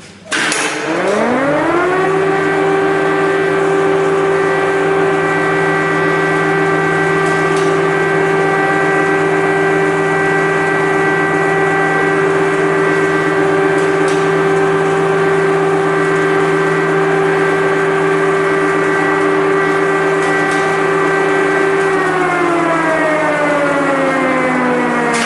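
Air-raid siren winding up to pitch over about two seconds, holding a steady wail, then starting to wind down about three seconds before the end.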